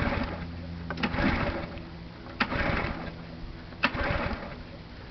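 Recoil starter of a pressure washer's Quantum lawnmower engine pulled four times, about one pull every second and a half, each pull a sharp click and a rush of cranking with no firing: the engine is being cranked without the choke and will not catch.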